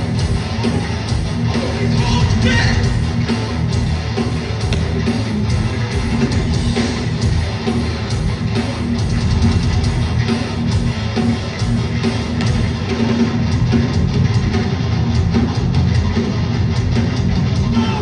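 Hardcore punk band playing live through a festival PA: distorted electric guitars, bass and drums, loud and unbroken.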